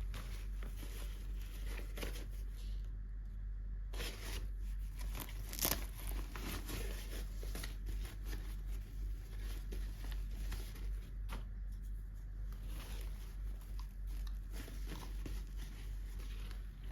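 Toy packaging being crinkled and torn open by hand, an irregular rustling crackle with scattered small clicks and a sharper snap about six seconds in.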